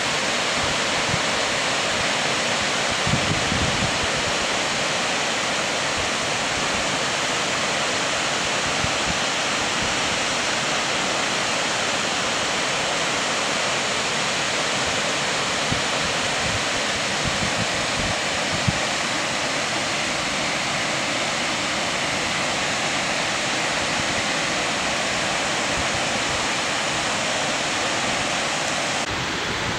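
The Friaren (Suitor) waterfall in a Norwegian fjord, heard up close: a steady, even rush of falling water.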